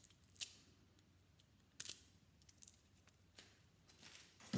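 Faint, scattered short crackles and clicks of layered tape being picked and peeled off a small transformer's copper coil by hand.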